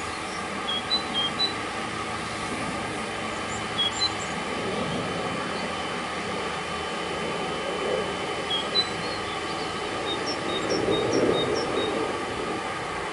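Pressure washer running as a car is rinsed: a steady hiss of spray over the hum of the pump, with a louder surge of spray near the end. A few short high chirps sound above it.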